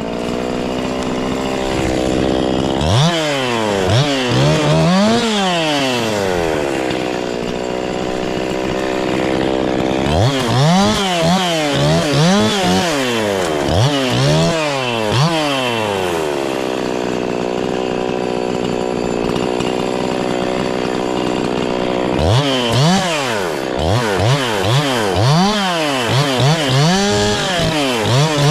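Two-stroke chainsaw running at high revs. It holds a steady pitch that sags slowly, as when it is under load in a cut, and in between is blipped up and down about once a second.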